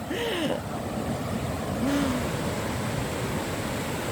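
Sea surf washing onto a beach: a steady rushing noise of breaking waves.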